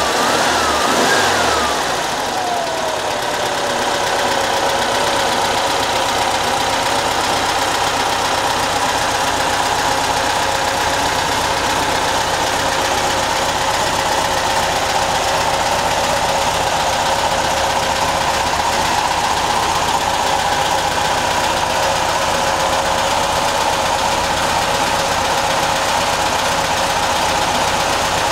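Restored 1955 Volkswagen 36 hp air-cooled flat-four engine running. It is revved briefly near the start, then the speed falls and settles into a steady idle within a few seconds.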